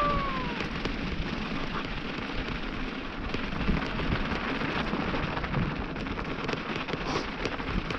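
Mountain bike tyres rolling over loose volcanic gravel and sand: a steady rough rushing noise with small scattered ticks of stones. A short falling pitched tone sounds right at the start.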